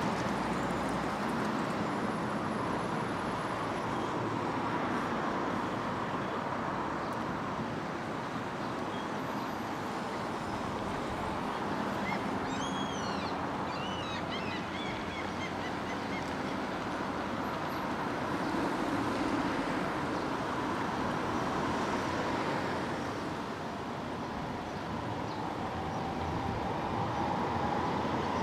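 Steady street traffic noise, with a brief run of high chirps about halfway through.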